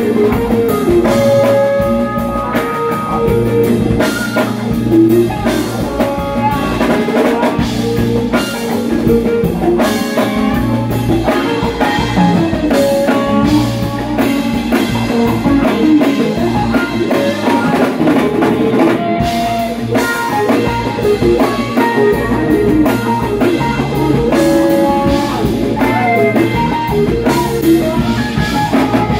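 A live rock band plays, with electric guitars and a bass guitar over a drum kit.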